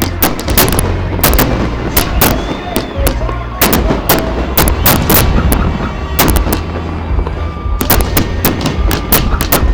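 Fireworks and firecrackers going off in rapid, irregular succession: dozens of sharp bangs, many overlapping, with a few faint whistling tones among them.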